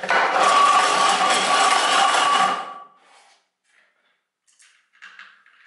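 Hand-held electric drill, fitted with a socket as a makeshift starter, cranking over an old rusty engine that has little compression and oil in its cylinders; it runs with a steady whine for about two and a half seconds, then stops. A few faint knocks follow.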